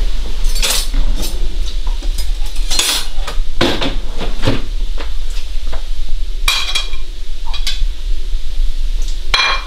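A metal utensil scraping and clinking against a frying pan of stir fry in a series of separate strokes, over a steady low hum.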